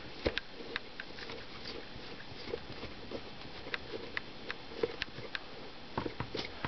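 Faint, irregular small clicks and ticks of a screwdriver and fingers working the little screws out of the plastic back of a Sleepy Sounds bedside nightlight, over a steady hiss.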